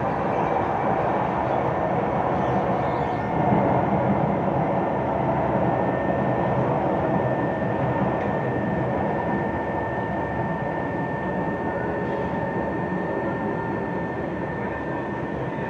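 SMRT Kawasaki C151 metro train running, a steady rumble of wheels and motors. A thin, steady high whine comes in about six seconds in, and the sound eases off slightly toward the end.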